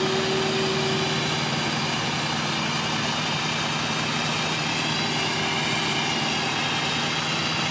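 Diesel engines of asphalt paving machinery running steadily: an even engine drone, with a faint higher tone over it in the first second or so.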